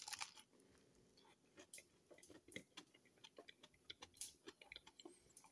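A person biting into a burger with potato chips inside it: a short burst of crunching in the first half-second, then faint, irregular chewing clicks.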